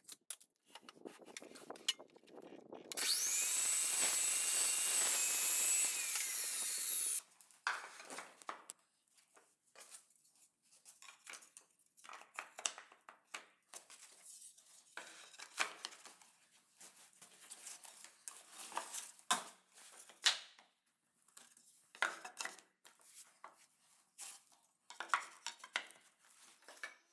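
Wood being worked by hand and power tool: a power tool runs with a high whine for about four seconds and stops abruptly. Then come scattered knocks, taps and rubbing of wooden parts being handled.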